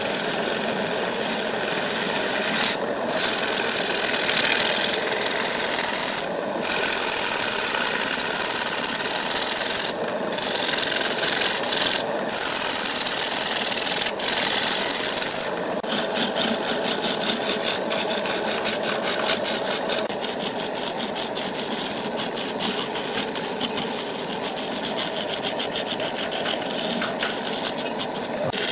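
Turning tool cutting into a spinning wooden disc on a wood lathe: a steady scraping hiss with several brief breaks in the first half. From about halfway on, a fast rapid ticking runs through the cut.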